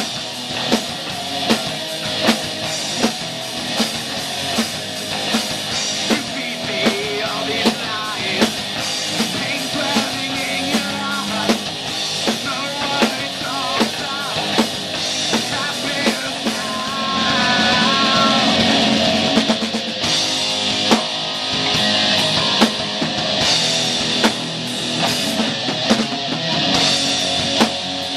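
Live rock band playing: two distorted electric guitars through amplifiers, an electric bass and a Ludwig drum kit keeping a steady beat, with a male lead vocal. The playing swells louder about two-thirds of the way through.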